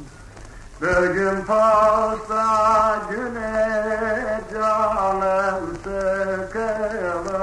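A man singing a Turkish folk song (türkü), from a 1937 wax-disc field recording with a steady hiss. After a brief pause, a new phrase begins about a second in, with long, wavering held notes.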